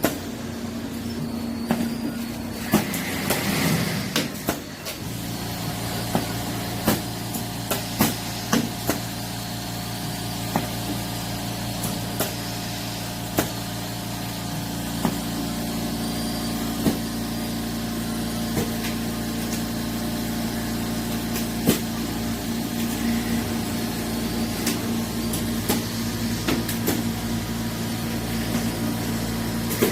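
Four-head makgeolli bottle-filling machine running: a steady motor hum with scattered sharp clicks and clanks, and a deeper hum joining about five seconds in.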